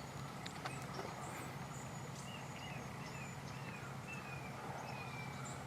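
Quiet outdoor ambience with faint, high, short bird chirps and whistles and a few small clicks.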